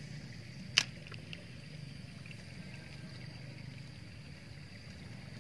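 Faint steady outdoor background with a thin high hum. One sharp click comes about a second in, followed by a few softer ticks.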